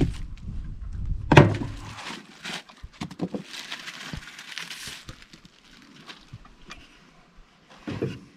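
Packaging being handled: a cardboard box and foam packing shifted, with a sharp thump about a second and a half in, then a plastic bag crinkling as the charge controller is slid out of it, and a knock near the end as the heavy unit is set down on the wooden truck bed.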